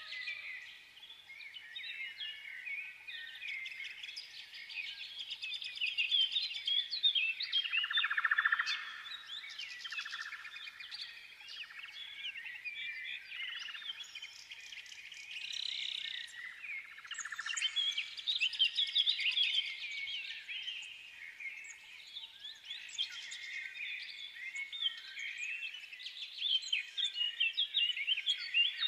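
A chorus of small songbirds chirping and twittering densely and without pause, many short quick notes overlapping.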